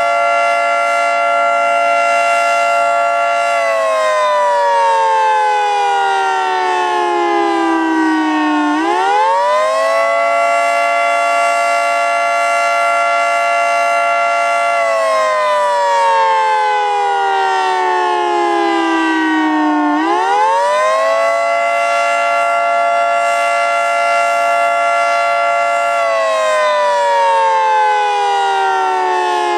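Federal Signal 2T22 dual-tone rotating electromechanical siren sounding the attack signal. The pitch winds up within about a second, holds for about five seconds, then winds down slowly over about five seconds, and the cycle repeats twice.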